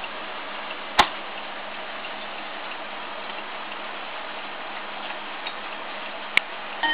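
Urgos mantel clock's movement ticking, with two sharp clicks, one about a second in and one near the end.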